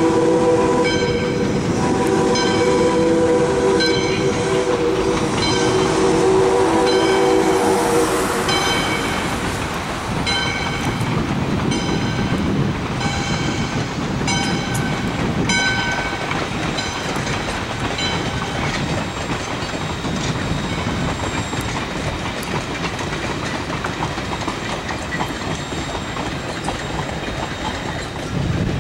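A steam locomotive's chime whistle, on ALCo 2-8-2 Mikado #40, sounds a long blast that stops about nine seconds in, over a grade-crossing bell dinging about once every three-quarters of a second until about halfway through. The rumble of the approaching train then builds, with wheels clacking on the rails as a passenger coach rolls past near the end.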